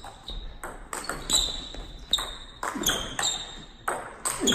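Table tennis rally: the plastic ball clicking off the rackets and the table in quick back-and-forth, several hits a second, each with a short high ping.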